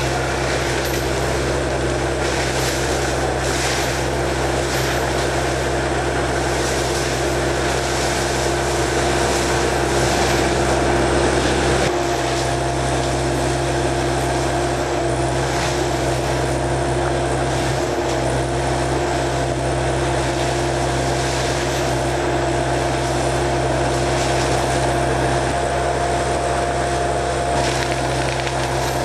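Menzi Muck A91 walking excavator's diesel engine running steadily under load, with a steady whine over the engine note, as the machine works with a forestry mulching unit.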